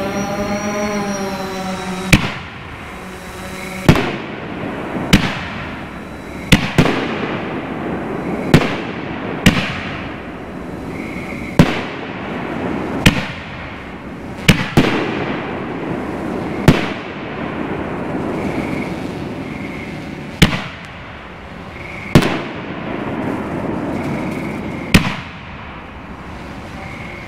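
Aerial canister firework shells going off one after another from mortars: about fifteen sharp booms spaced a second or two apart, each with a short echo, over a continuous rumbling background.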